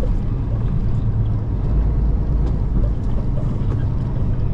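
Semi truck's diesel engine running steadily as the truck drives, a low drone.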